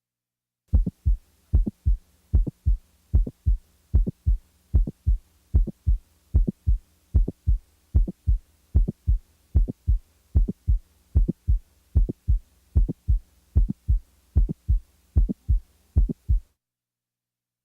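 Heart sounds as heard through a stethoscope: the regular lub-dub of S1 and S2 with a mid-systolic click between them, the click of a prolapsing mitral valve, with no murmur. The beats start just under a second in and stop about a second before the end.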